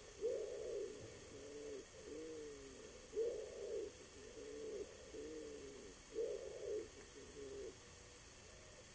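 Pigeon cooing: three phrases about three seconds apart, each a louder coo followed by several softer ones.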